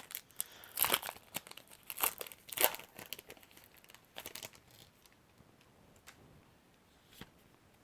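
A foil Pokémon booster pack being torn open and crinkled, a dense run of crackling tears and rustles for about four seconds, then a few faint rustles and clicks as the cards are handled.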